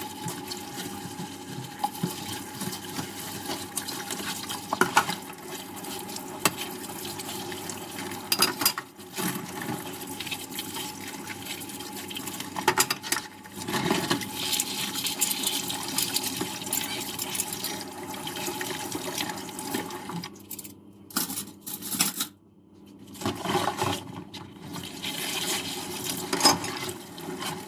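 Dishes being washed in a kitchen sink under running tap water, with the odd sharp clink of crockery. The water sound breaks off in short gaps about twenty seconds in, then comes back.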